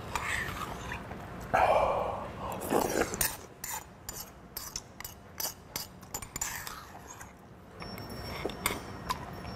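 Slurping soup from an earthenware ttukbaegi bowl, then a spoon scraping and clinking against the bowl in many quick, irregular clicks as the last of the soup is scooped out.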